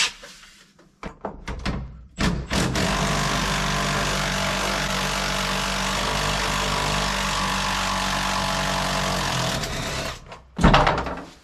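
A few light knocks, then a machine motor running steadily with an even hum for about seven seconds before it stops.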